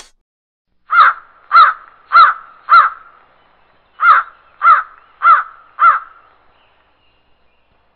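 Crow cawing: two runs of four loud caws, each caw about half a second apart, with a pause of just over a second between the runs.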